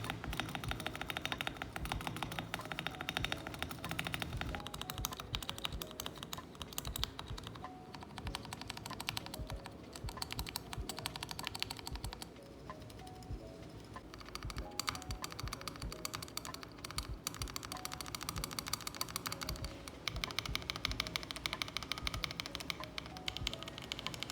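Fast typing on a freshly built GMK67 mechanical keyboard with Gateron white and yellow linear switches under PBT keycaps: a dense run of key clacks. It thins out for a moment about halfway through, then picks up again and grows denser near the end.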